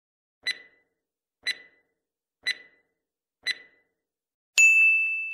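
Clock-tick sound effect, four ticks one second apart, then a high ding that starts suddenly and slowly fades. It is a timer cue that gives listeners time to answer a question and marks when the time is up.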